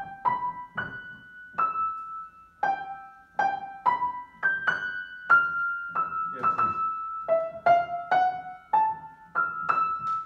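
Grand piano played slowly, one note at a time in the upper register, about one or two notes a second, each left to ring and fade, with a few lower notes sounding under some of them.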